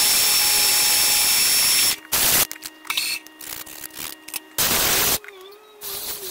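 Milling machine cutting an aluminium block with flood coolant spraying: a loud steady rush of cutting and spray noise that cuts off about two seconds in. After that, quieter handling sounds with small clicks and two short loud rushes of noise.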